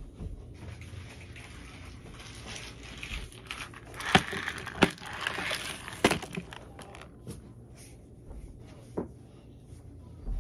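Plastic slime tubs being handled and set down on a plastic tray, with rustling and a few sharp knocks. Three loud knocks come in the middle and a fainter one a few seconds later.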